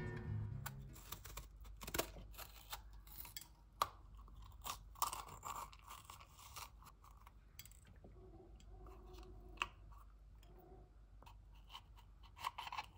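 A knife cutting around the stems of crisp yellow peppers and prying out the cores: scattered crunches and snaps of the pepper flesh, coming irregularly every second or so.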